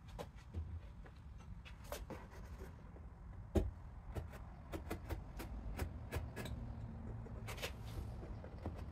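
Scattered light taps, knocks and scrapes from hands handling and pressing on a cardboard box, with one sharper knock about three and a half seconds in, over a low steady rumble.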